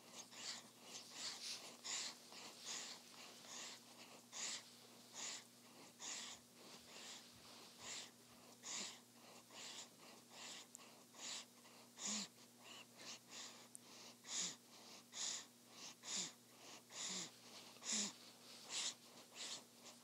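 Sleeping newborn sucking on a pacifier: faint, short wet sucking clicks repeating in a loose rhythm about once or twice a second, with her soft breathing.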